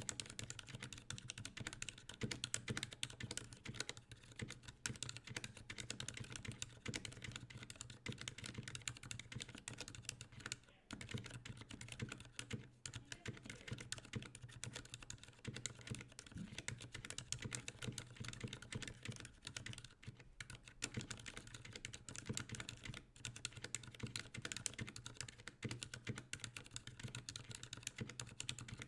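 Fast, continuous typing on a NovelKeys NK65 Entry keyboard with stock, unlubed Cherry MX Silent Black linear switches, tuned plate-mount stabilizers and PBT keycaps: a dense run of keystrokes, broken by two short pauses about eleven and thirteen seconds in.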